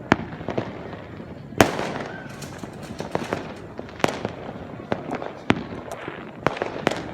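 Fireworks going off: irregular sharp bangs and pops over a steady crackle, the loudest bang about a second and a half in.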